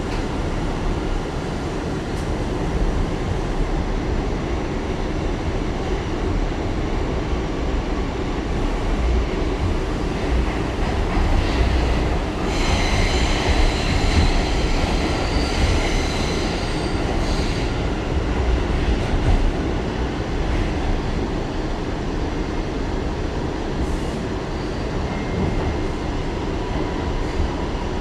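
R179 subway car running at speed on the rails, a steady heavy rumble, with a high squeal of the wheels for about five seconds around the middle.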